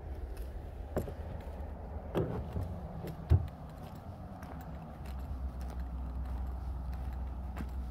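Wind rumbling on the microphone, with scattered light clicks and a few knocks; one sharp low thump stands out about a third of the way in.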